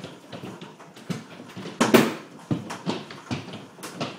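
Baseball-size hailstones striking the roof and awning in irregular, sudden thuds, about six impacts, the loudest about two seconds in, over a steady background noise.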